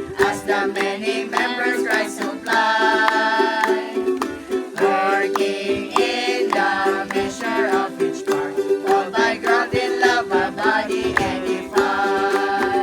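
A congregation singing a hymn in unison, with a strummed string instrument keeping a steady rhythm underneath.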